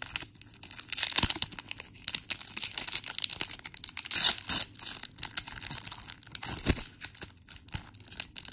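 Foil wrapper of a Pokémon booster pack being torn open and crinkled by hand: continuous crackling and rustling, loudest about four seconds in.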